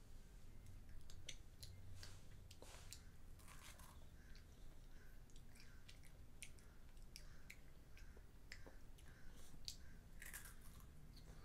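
Faint chewing and crunching of chocolate treats by a child, with many small scattered clicks and crackles.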